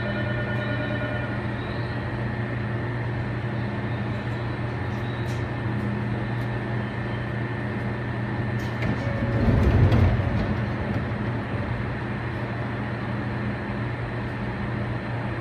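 Sotetsu New 7000 series electric train standing in an underground station, its underfloor equipment humming steadily and echoing off the station walls. About nine and a half seconds in, a brief louder rumble rises as the train's doors close.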